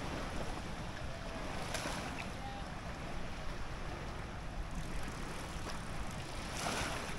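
Steady outdoor noise of wind and water, with a couple of brief swishes about two seconds in and near the end.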